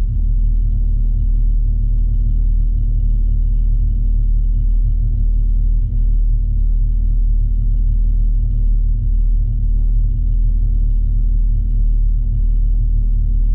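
Porsche 992 GT3 RS at speed on track, a loud, steady low rumble of engine and road noise with no clear rise or fall in revs.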